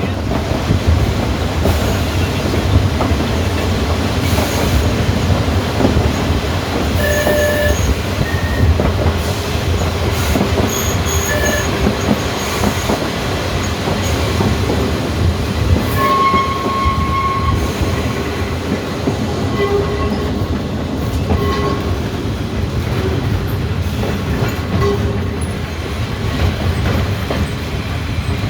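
Manx Electric Railway tramcar running along the track: a steady rumble of wheels and running gear, with a few short wheel squeals, the longest about halfway through.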